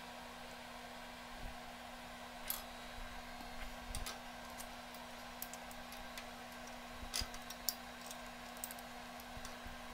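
Light metallic clicks and taps of aluminum sheet and aluminum angle pieces being handled and seated in a steel bench vise, with a few sharper clicks about seven seconds in, over a steady low hum.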